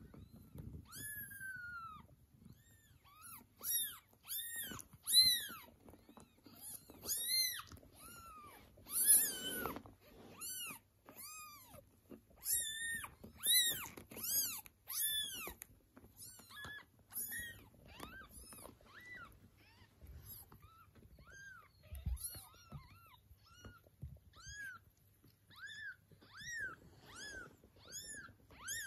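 Newborn kittens mewing: a long run of short, high-pitched cries that rise and fall, often several in quick succession, thickest in the first half, with one louder, harsher cry about nine seconds in. The mewing is the kittens calling for their mother.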